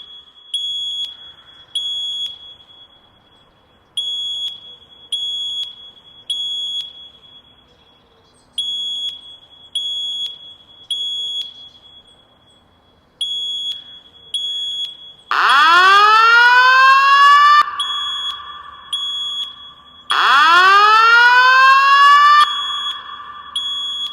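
Building fire alarm sounding: a high-pitched beep in groups of three, about one beep a second with a short pause between groups (the temporal-three evacuation pattern). Twice in the second half, a much louder whooping tone joins in, sweeping quickly upward and holding for about two seconds.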